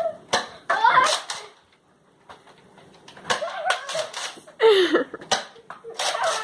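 Foam-dart blasters snapping off shots as a series of sharp clicks, mixed with short shrieks and laughter.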